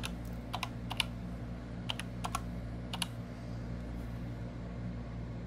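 Computer keyboard being typed on, slowly: about eight separate keystroke clicks spread over the first three seconds as a short word is entered, over a steady low hum.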